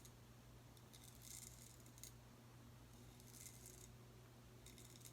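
Faint scraping of a Boker Tree Brand straight razor cutting through lathered stubble, in three short strokes.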